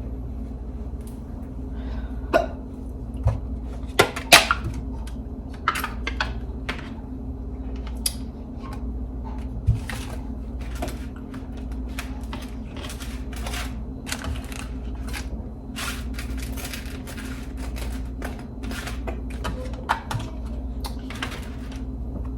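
A woman hiccuping again and again, short sharp hiccups every few seconds, among lighter clicks, over a steady low hum.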